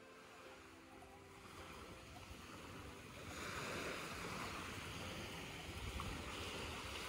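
Small waves washing and breaking on a sandy shore, a steady surf noise that grows louder about three seconds in.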